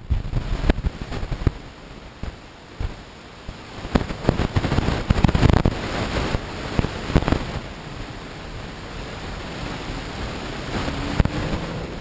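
Car driving noise heard from a camera on the dashboard: a rumbling noise with many crackling knocks, loudest about four to six seconds in, and a faint rising engine note near the end.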